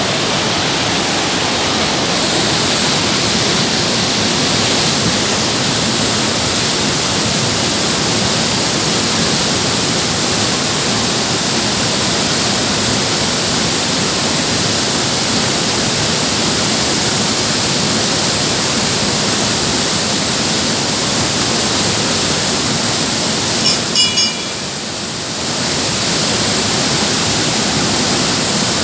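Waterfall rushing with a steady, dense roar of falling water. Near the end, a few short high chirps cut in and the rush briefly drops a little in level.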